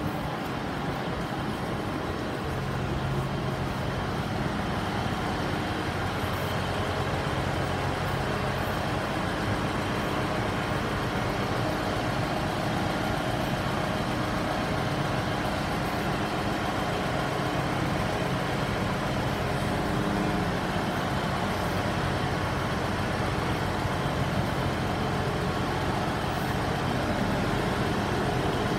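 Diesel multiple unit standing at the platform with its engine idling, a steady low hum that holds unchanged throughout.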